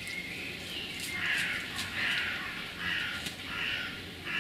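A crow cawing: a run of about five harsh calls, roughly one a second, starting about a second in, with faint clicks of rustling beneath.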